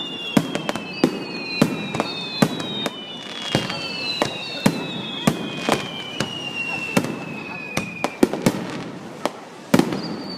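Aerial fireworks going off in a steady barrage of sharp bangs, about one or two a second, with several high whistles that slowly fall in pitch and overlap one another.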